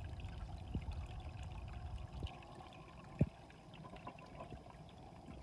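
Water from a Marineland Penguin Pro 125 hang-on-back aquarium filter spilling over the side of the filter box and splashing into the tank, a steady trickling pour that softens after about two seconds. The water overflows around the filter cartridge instead of passing through it. A single short knock sounds about three seconds in.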